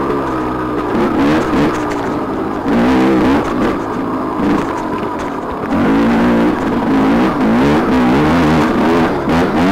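TM 300 two-stroke dirt bike engine being ridden hard on a trail, revving up and down repeatedly as the throttle is worked. The engine picks up again and is louder from about six seconds in.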